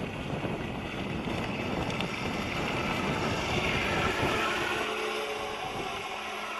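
Radio-controlled boat's electric jet drive running at half throttle across the water: a steady rush of water and wind noise. The low rumble drops away about five seconds in, leaving a faint steady hum.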